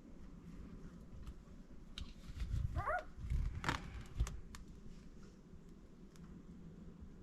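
A Labrador puppy giving a short, wavering squeak about three seconds in, among soft clicks and low thumps from the puppies moving about.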